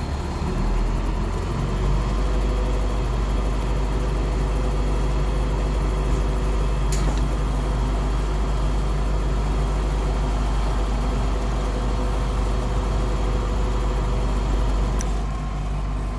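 Stump grinder's gas engine running steadily, its low drone growing a little stronger about a second in, with a sharp click about seven seconds in and another near the end.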